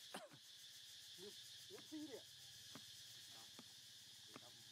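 Faint monkey calls: a few short, pitched coos and squeaks, the clearest about two seconds in, with a couple of soft clicks, over a steady high hiss.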